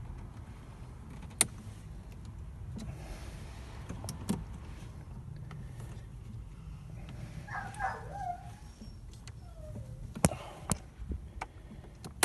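Sharp plastic clicks and knocks of hands working at a car's fuse box to pull out a blown fuse, a handful of separate clicks over a steady low rumble, with a short wavering squeak just past the middle.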